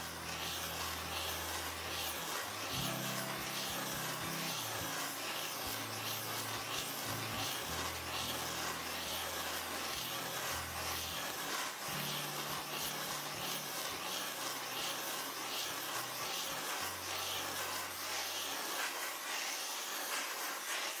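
Gas welding torch flame hissing steadily as it heats a spun brass lamp floor toward a dull red, annealing the work-hardened metal to soften it for further spinning. Low held tones that change pitch every second or two sit underneath.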